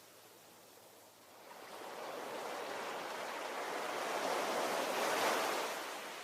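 Ocean wave breaking and washing in: a rising rush of surf that swells for several seconds, peaks about five seconds in, then recedes.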